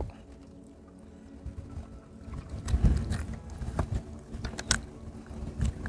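Handling noises as a hook is worked out of a crappie's mouth: scattered light knocks and taps with a few low thumps, starting about a second and a half in.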